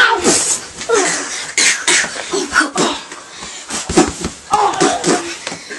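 Children scuffling at close range: short, irregular bursts of grunts, coughs and breathy gasps mixed with clothing rubbing.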